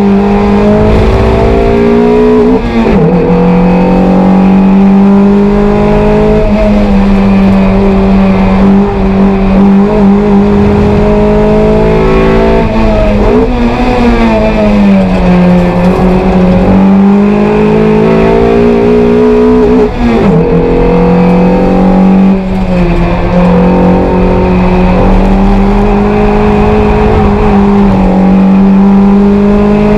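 Toyota MR2 race car's engine heard from inside the cockpit, held at high revs under hard acceleration on track. The revs dip briefly about 3, 20 and 22 seconds in. Around 13 to 16 seconds in, the pitch falls slowly and climbs back as the car slows and then pulls away again.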